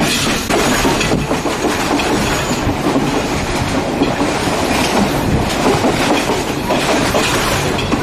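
Passenger train running along the line, a steady loud noise of wheels on the rails, heard from inside the carriage through an open window.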